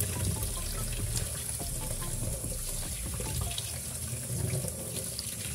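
Running tap water splashing over raw chicken pieces in a stainless steel colander as they are rinsed by hand, the water streaming out of the colander into the sink, with small scattered ticks from the handling.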